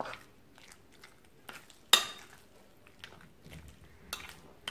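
A spoon and hand mixing sticky minced chicken with egg in a glass bowl, giving soft wet squelching and scraping. There are scattered light clicks and one sharp clink of the metal spoon against the glass about two seconds in, the loudest sound here.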